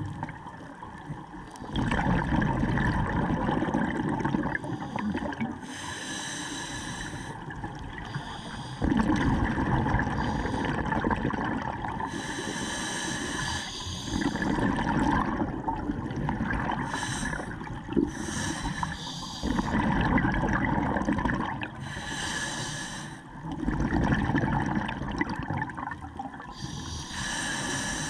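Scuba regulator breathing underwater: a hiss on each inhale, then a longer, louder rumble of exhaled bubbles. About five breaths, one every five to six seconds.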